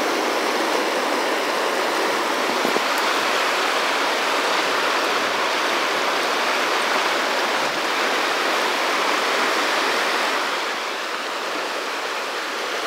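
Rough, rocky mountain river rushing through pocketwater: a steady rush of fast-flowing water, dropping a little in level about ten seconds in.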